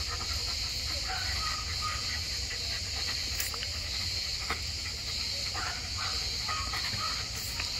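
A steady high-pitched insect chorus with a low rumble underneath, and a large dog panting, with a few short faint whines early on.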